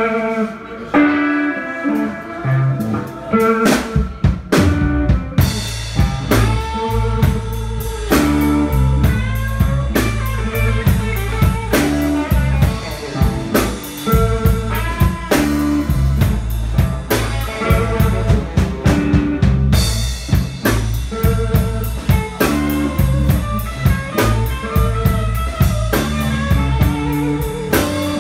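Live blues band playing an instrumental passage: electric guitar lines over bass guitar and drums. The playing is sparse at first, then the full drum kit with cymbals comes in about five seconds in.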